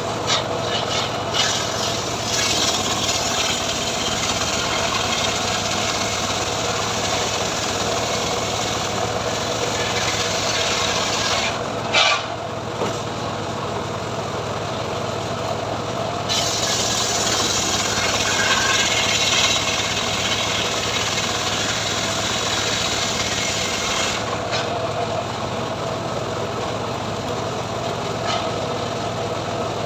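Engine-driven homemade sawmill running steadily while its blade cuts through mahogany, a harsh rasping saw noise over the engine hum. The cutting noise swells and eases as the cut goes on, strongest through the middle stretch.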